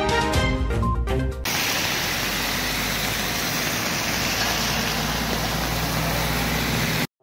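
News intro music that stops about a second and a half in, giving way to a steady, even rushing noise that cuts off suddenly near the end.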